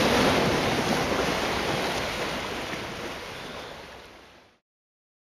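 Ocean surf washing on the rocky shore, mixed with wind on the microphone, fading out and stopping about four and a half seconds in.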